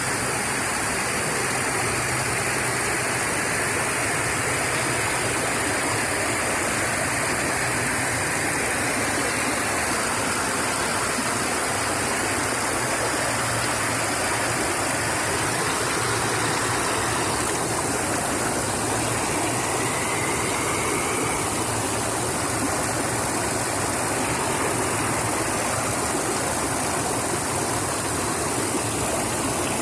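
Small creek: water rushing and splashing steadily over stones.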